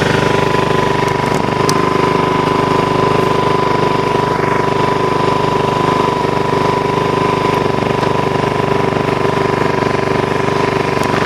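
Ryobi RYi2000 inverter generator's engine running steadily at an even pitch while it powers a load of light bulbs.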